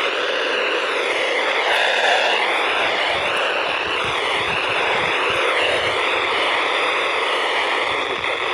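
Weather radio receiver putting out steady static hiss from a weak, distant NOAA Weather Radio signal, with the hiss wavering in tone as the reception fades in and out.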